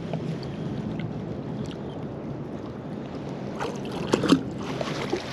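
A fishing magnet on a rope being hauled through shallow river water, with water sloshing and a short burst of splashing about four seconds in, the loudest moment.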